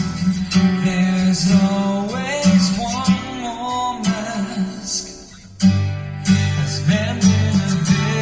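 Song with guitar and singing played on a car audio system: a Venom Pandora 2.4 DSP drives the Honda City's front OEM speakers and Hifine tweeters in a two-way active setup, with a 12-inch passive subwoofer. The music thins out and dips about five seconds in, then comes back with heavier bass.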